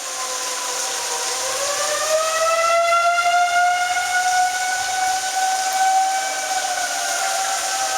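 Outdoor tornado warning siren wailing. Its pitch dips about a second in, then rises and holds high, easing down again near the end, over a steady hiss.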